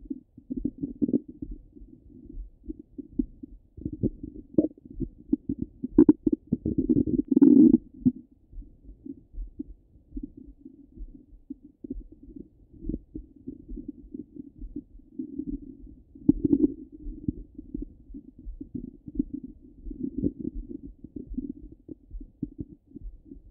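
Stomach and bowel gurgles heard through a Littmann stethoscope pressed to the belly: an irregular run of low, muffled bubbling and crackling. It swells into a louder, longer gurgle about six to eight seconds in, with another burst a little past the middle.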